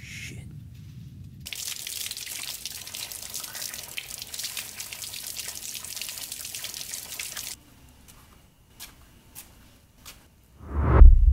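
Water running from a faucet over hands being washed, cutting off suddenly about two-thirds of the way in; a few drips follow. Near the end a loud, deep rumble swells up.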